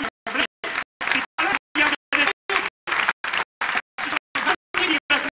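An amplified man's voice talking, cut into short fragments about three times a second, with complete dropouts of sound between them.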